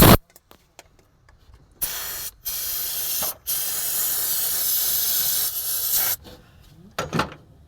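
Aerosol carb cleaner sprayed into an electronic throttle body to wash out dirt. A short burst comes at the start, then three longer hissing sprays from about two seconds in, the last lasting about two and a half seconds.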